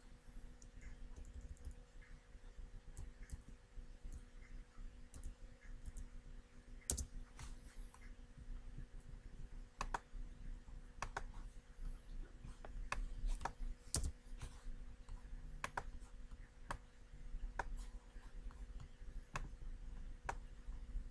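Scattered clicks from a computer mouse and keyboard at irregular intervals, a few seconds apart, over a faint steady hum.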